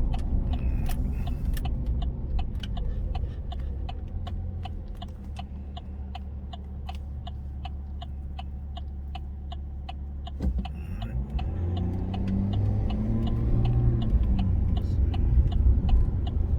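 3.0 Duramax inline-six turbodiesel fitted with an S&B cold air intake, heard from the cab: the engine eases off to a low idle-like run with a steady ticking about three times a second, then pulls away again, its pitch and loudness rising over the last third.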